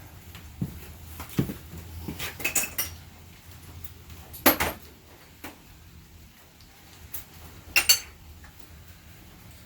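Metal engine parts clinking and clanking as they are worked loose and handled: a scatter of sharp metallic knocks, the loudest about four and a half seconds in and another pair near the end, over a low steady hum.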